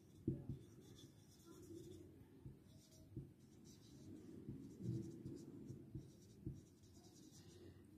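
Marker pen writing on a white board, faint uneven strokes with a few small taps of the tip.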